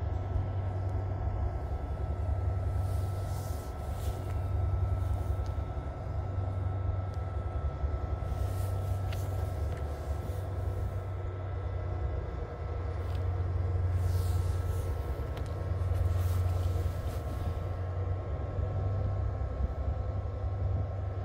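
An exo commuter train's Bombardier ALP-45DP locomotive standing at the station with its diesel engines running, a steady low rumble. Air hisses several times from the train's brake system.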